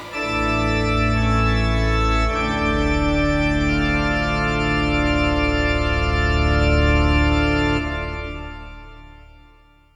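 Soundtrack music closing on long held organ-like chords, which fade out over the last couple of seconds.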